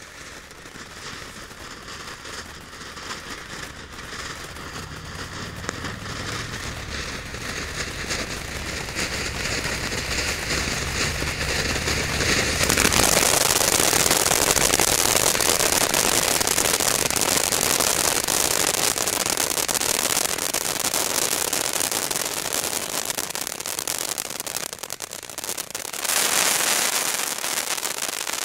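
Panda Frozen crackling fountain battery burning: a hissing spray of sparks that grows steadily louder, then from about halfway a dense, loud crackling that runs on, with a fresh surge of crackling near the end.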